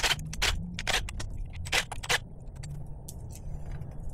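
Small metal parts clicking and scraping as ignition coils and their bolts are taken off an outboard motor: a quick run of sharp clicks in the first two seconds, then fainter handling noise over a low steady hum.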